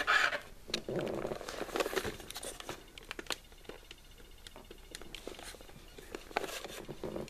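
Handling noises from an animatronic toy figure being picked up and tipped over by its base: scattered clicks, knocks and rustling.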